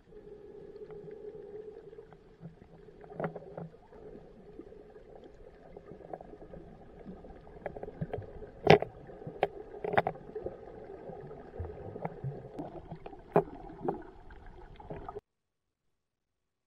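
Muffled underwater sound picked up by a submerged camera: a steady low rumble of moving water, broken by several sharp clicks and knocks, then cutting off abruptly near the end.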